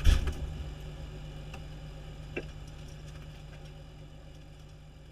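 A single heavy thump at the start, then the fire engine idling as a steady low hum that slowly fades, with one light click about two and a half seconds in.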